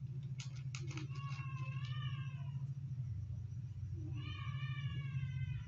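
Newborn kitten mewing: two long, high, wavering mews, the first about a second in and the second about four seconds in, with a few soft clicks near the start. A steady low hum runs underneath.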